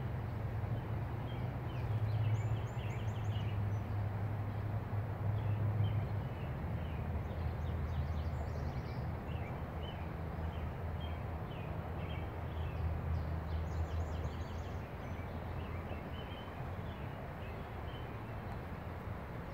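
Canada goose goslings peeping: short, high peeps about once a second, over a steady low rumble.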